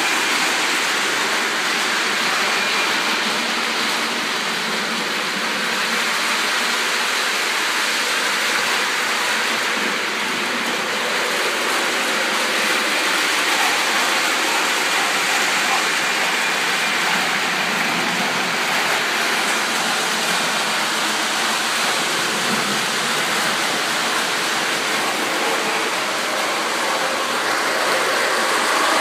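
Lionel O-scale model trains running on the layout's track, a steady rushing noise that holds even throughout.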